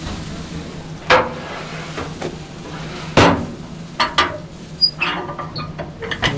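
Kitchen clatter: a string of sharp knocks and clinks of utensils and containers, some with a short ring, over a steady hum.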